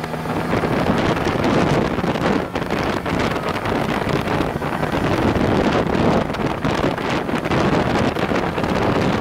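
Wind rushing over the microphone at road speed, with the BMW R1100RT's boxer-twin engine running underneath.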